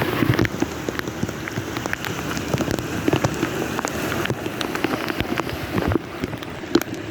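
Heavy rain falling, with many individual drops striking a nearby surface in dense, irregular taps.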